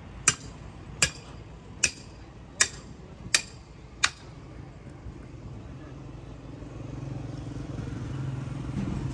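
Six sharp metal strikes, evenly spaced about three-quarters of a second apart: a hammer knocking a tyre iron in between a truck tyre's bead and its steel rim. In the second half a vehicle engine hums low and grows steadily louder.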